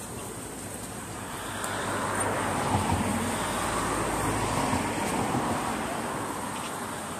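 A van driving past on the road: tyre and engine noise swells to a peak around the middle, then fades away.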